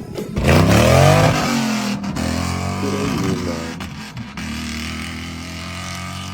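Off-road vehicle engine revving hard, its pitch sweeping down after a sudden loud start, revving again about three seconds in, then running steadily.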